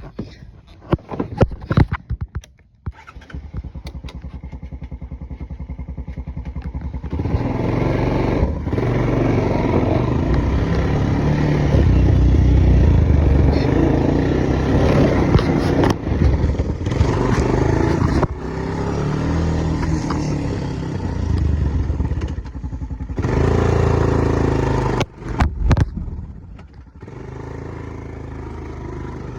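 A small motor vehicle's engine running as it is ridden, its level rising and falling with the throttle, with brief drops around the middle and near the end.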